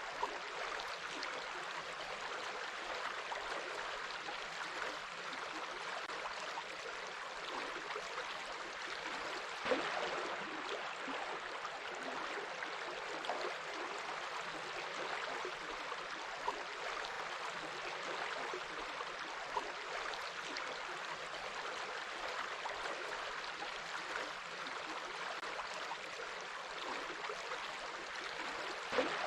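Water running in a stream: a steady rushing hiss with a few brief splashes.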